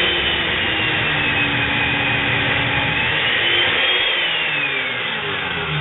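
Makita 7104L chain mortiser running loud, its chain cutting into timber as the tilted head is plunged in. The motor's whine dips and rises with the load and falls off near the end.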